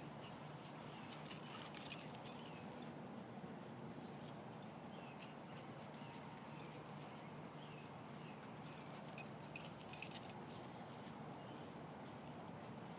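Dogs' collar tags jingling in two short bursts, about two seconds in and again around ten seconds in, as the dogs run and nose through ground cover.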